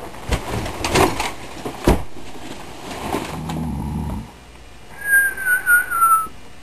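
A person snoring: a low rough snore followed by a wavering whistle on the out-breath that drifts slightly down in pitch, after a few knocks and rustles near the start.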